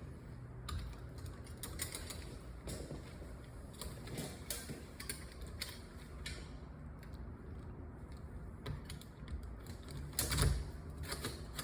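Metal deadbolt parts clicking and knocking as they are handled and fitted into a door, in scattered short clicks, with a louder cluster of knocks near the end.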